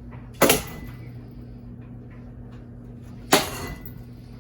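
Two loud knocks about three seconds apart from a ceiling fan being struck as it is smashed apart, each with a brief ringing tail, over a steady low hum.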